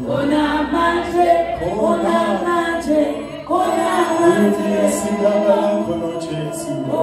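A man singing into a microphone with a group of voices joining in, an unaccompanied gospel chorus in long held phrases; a new phrase starts about three and a half seconds in.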